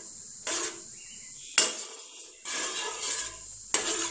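Steel ladle stirring thin dal in a non-stick kadai: four short scraping, sloshing strokes. Two of them start with a sharp knock of the ladle against the pan, about a second and a half in and near the end.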